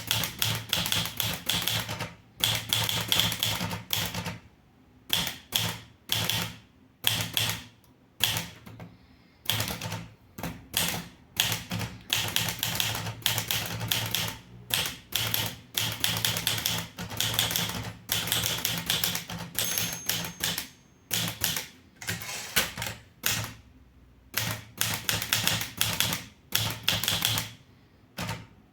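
Underwood 315 manual typewriter being typed on: rapid runs of key strikes in bursts, broken by short pauses.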